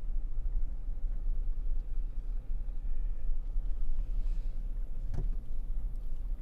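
Low, steady rumble of a vehicle driving, heard from inside the cabin, with one sharp click or knock about five seconds in.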